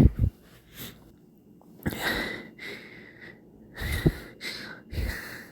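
A person's hiccups: sudden, sharp jolts right at the start and again about four seconds in, with breathing between them.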